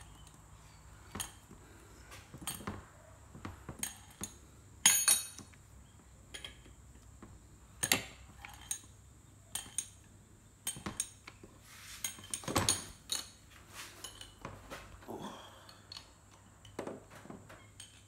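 Scattered metallic clinks and knocks of hand tools against a homemade cylinder pusher and the cylinder of a Yamaha RZ350 engine, as the pusher frees the cylinder from its seized piston. The loudest is a sharp, ringing clink about five seconds in.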